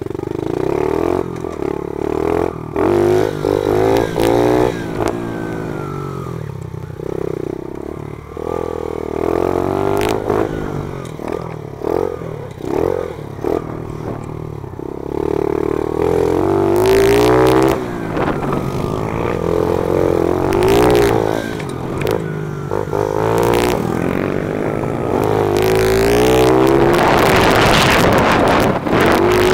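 Small four-stroke single-cylinder pit bike with an FMF exhaust, ridden hard around a dirt track: the engine revs rise and fall over and over as it accelerates and backs off, with scattered knocks from the bumps. Wind rushes over the helmet-mounted microphone, loudest near the end.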